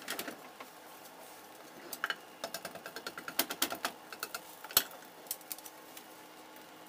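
Wooden chopsticks tapping and scraping against a rectangular tamagoyaki pan while stirring beaten egg: a quick run of light clicks starting about two seconds in, with one louder knock a little later.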